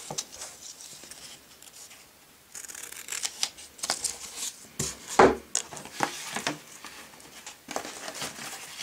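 Scissors cutting a strip off a roll of brown gummed paper tape: a run of crisp snips and paper crackles starting about two and a half seconds in, loudest around the middle. Near the end comes a softer rustle of paper and cardboard being handled.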